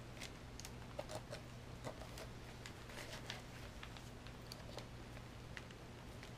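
Faint, irregular clicks and light rustling of plastic gel pens being handled and slotted into fabric pen loops, over a low steady hum.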